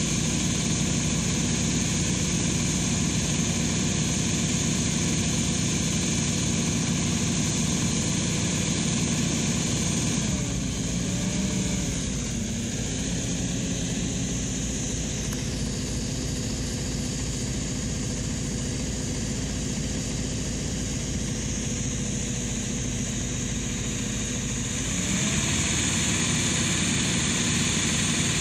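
Lindner transporter's engine driving a lobe pump that feeds a liquid-manure jet gun, running steadily at working revs with a hiss from the jet. About ten seconds in the revs drop and the sound gets quieter, and the jet falls short. Near the end the revs climb back up and the jet throws far again.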